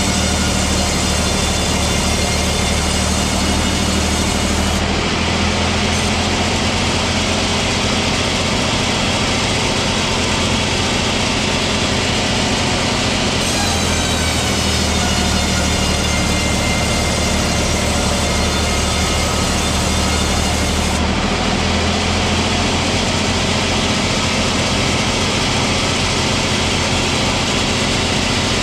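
Sawmill saw running steadily through timber: a loud, constant machine drone under a high whine. The sound changes abruptly three times.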